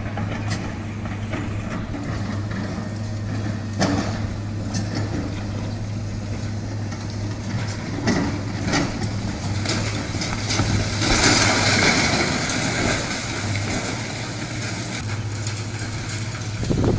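A heavy machine's engine running steadily, with a few sharp knocks and a louder burst of hissing noise about eleven seconds in.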